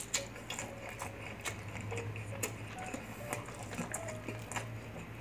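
Chewing and crunching of fried food in the mouth: crisp crackles and clicks at irregular intervals, over faint background music.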